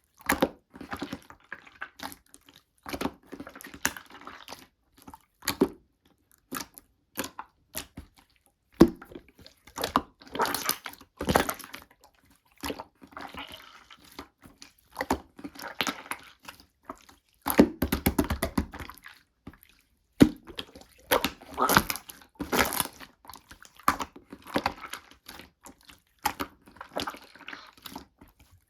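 Slime being squeezed, stretched and pressed by hand, giving irregular sticky clicks and pops with short squishy bursts between them.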